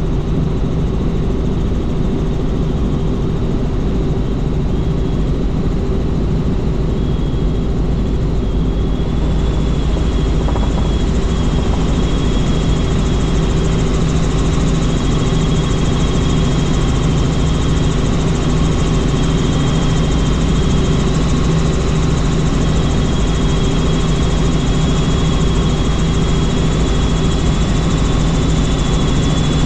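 Helicopter in flight: steady, loud rotor and engine noise with several low, level tones. A faint high whine comes and goes over it, and the sound turns brighter about a third of the way through.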